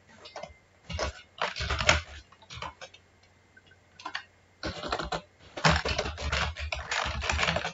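Typing on a computer keyboard: short scattered bursts of keystrokes, then a faster, denser run of typing over the last three seconds or so.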